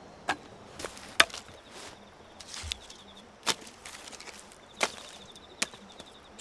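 Dry firewood sticks knocking and clacking in about five sharp wooden strikes, the loudest just over a second in. A faint insect trill runs underneath in the second half.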